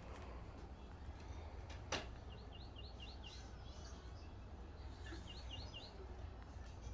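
A songbird singing two short phrases of quick, repeated chirping notes, about three seconds apart, over a steady low rumble. A single sharp click comes about two seconds in.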